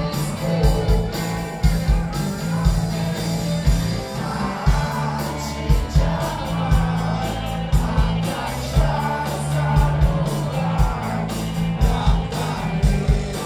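Rock band playing live: electric guitars, bass and a steady drum beat, with a lead vocal sung in Portuguese, heard from within the audience.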